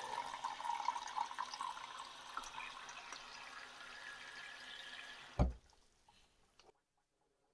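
Water running from a kitchen tap into a glass jar of acorn flour. The flow thins over the first few seconds, and a single thump comes about five seconds in.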